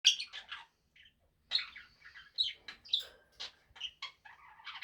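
Budgerigar chattering and warbling, a quick irregular run of high chirps and clicks with a short pause about a second in, typical of a budgie talking to its own reflection in a mirror.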